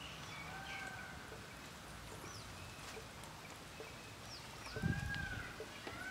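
Birds calling in the background: repeated short arched whistles with a few quick high chirps in between. A low thump comes about five seconds in.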